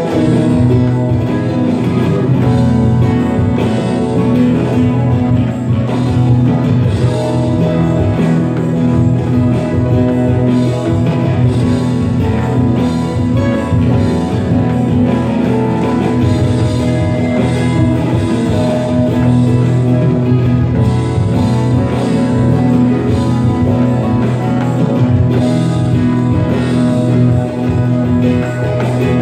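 Live band playing an instrumental passage: acoustic and electric guitars over a bass guitar line, with drums keeping a steady beat.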